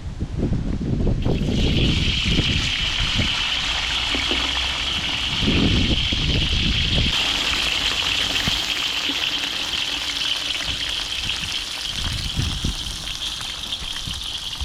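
Tilapia frying in hot oil: a steady, hissing sizzle that starts about a second in, with low rumbles of wind on the microphone underneath.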